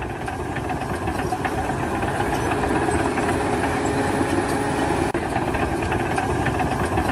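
A heavy engine running steadily, growing a little louder over the first couple of seconds.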